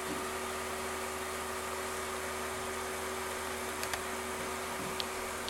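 Steady hum and hiss of running machinery. A quick double click comes about four seconds in and a single click about a second later: a mouse or touchpad button being clicked.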